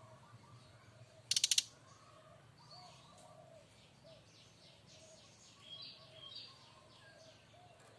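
Brown-chested jungle flycatcher giving its loud rattling 'kretekan' call: a short run of rapid dry clicks about a second and a half in. Softer clicking rattles follow through the rest, a little louder around six seconds.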